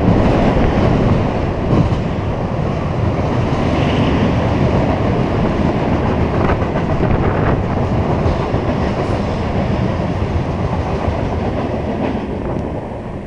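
Freight train of loaded covered hopper cars rolling past close by: a steady rumble of steel wheels on rail with a few sharp wheel clacks. The sound fades near the end as the last car goes by.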